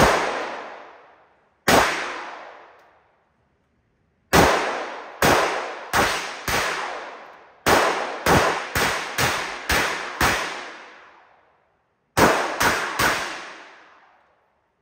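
Gunshots at a shooting range: about fifteen single shots, two spaced well apart, then a quicker string of ten and a closing group of three, each trailing off in a long echo.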